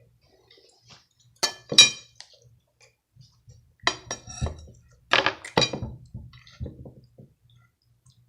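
Cutlery clinking against a dinner plate while eating: about half a dozen sharp clinks with a brief ring, the loudest about two seconds in.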